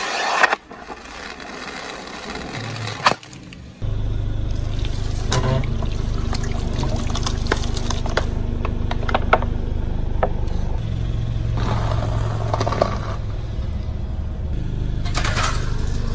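Car engine running at a low steady hum as its tyre rolls over and crushes objects, with scattered sharp cracks and snaps and stretches of liquid squirting and spraying out from under the tyre. A short fizzing hiss from a burning sparkler comes at the very start.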